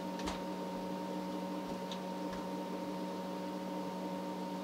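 Steady electrical hum from the powered-up bench test equipment, with a few faint clicks as the signal generator's frequency dial is turned by hand.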